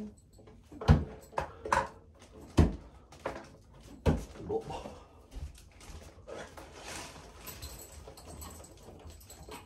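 Bo-shuriken thrown in quick succession striking a target board, five sharp hits in the first four seconds or so. After that come softer scrapes and clicks as the blades are worked out of the board.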